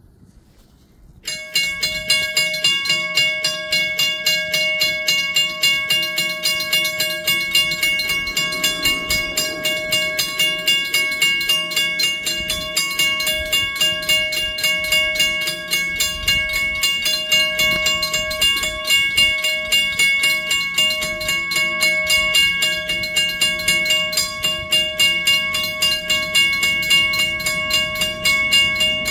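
Three mechanical railroad crossing bells start ringing suddenly about a second in and keep up rapid, steady, overlapping strokes: the crossing has activated for an approaching train.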